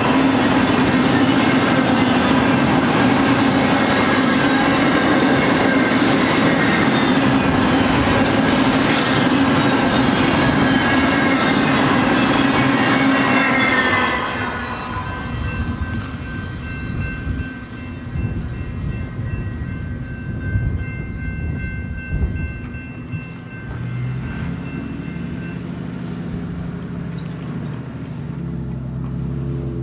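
Double-stack intermodal freight cars rolling past, steel wheels clattering and rumbling on the rails; the sound drops off suddenly about halfway through as the last car clears. After that, faint steady high tones ring for several seconds, and near the end a pickup truck's engine comes up.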